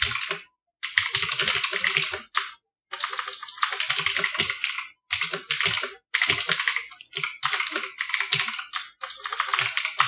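Fast typing on a Thunder TGK Holo 360 mechanical keyboard with clicky Otemu blue switches: loud, quick runs of key clicks in bursts of a second or two. Between the bursts the sound drops to dead silence, cut by noise cancelling on the microphone.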